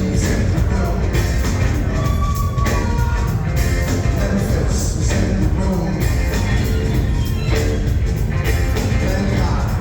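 Rock band playing live at full volume, with a heavy bass line and steady drum hits.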